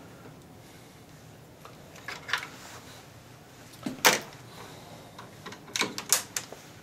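Scattered sharp clicks and taps of a screwdriver working the small screws of a TV power supply board, with the loudest click about four seconds in and a quick run of clicks near the end.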